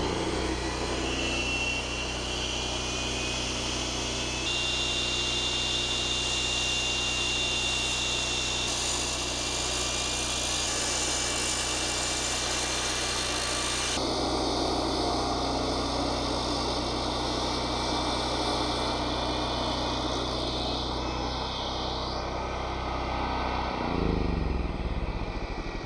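iQ dry-cut masonry saw running, its diamond blade cutting through a concrete coping stone over the steady hum of the motor and built-in dust vacuum. The motor winds down near the end.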